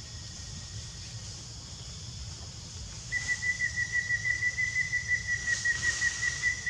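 A high, steady whistling call starts about three seconds in and goes on, pulsing about six times a second, over a steady high hiss.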